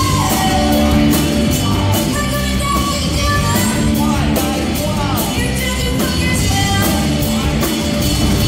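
Live rock band playing loudly: electric guitar, bass guitar and drums with steady cymbal strikes, and a woman's voice singing over them.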